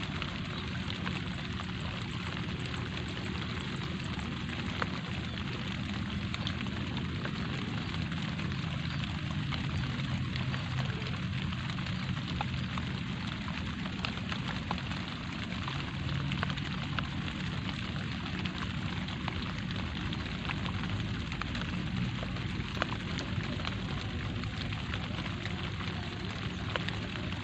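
Light rain falling steadily, a dense patter of small drops over a low, even rumble.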